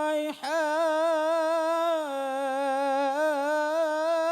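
Quran recitation in melodic tilawah style: a single reciter draws out one long, ornamented note with a wavering pitch, after a quick breath just after the start.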